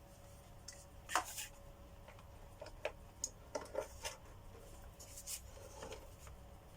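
Scattered light clicks, taps and scrapes of hard plastic parts being handled and fitted together while a vacuum cleaner is reassembled by hand.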